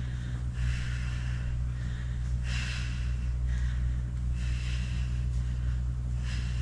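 A person breathing hard in rhythm during an exercise set, with hissy breaths about once a second as she inhales and exhales through each rep. A steady low hum runs underneath.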